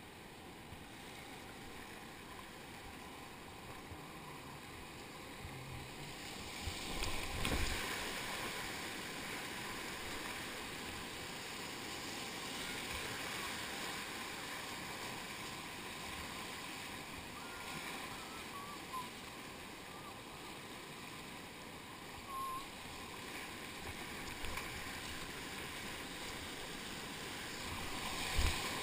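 Rushing whitewater of a river rapid heard from a kayak's bow, a steady wash of water noise that swells into louder splashing about seven seconds in and again near the end.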